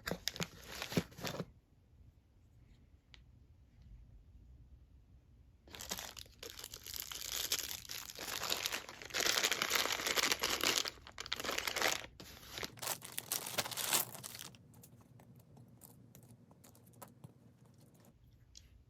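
Packaging for a kitchen sprayer replacement kit being torn open and crinkled. There is a short burst of rustling at the start, a long stretch of tearing and crinkling through the middle, and scattered light clicks and rustles near the end.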